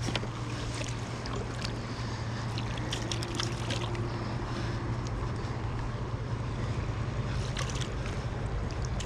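Steady rush of river current flowing around wading legs and a landing net held in the water, with scattered small clicks and splashes.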